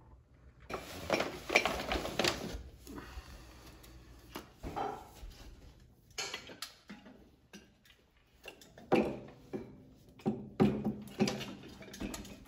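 Brass weights being handled and hung inside a wooden grandfather clock case: irregular metallic clinks, knocks and rattles, busiest about a second in and again near the end.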